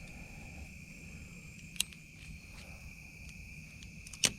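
Insects trilling steadily at one high pitch, with two sharp clicks, one about two seconds in and a louder one near the end.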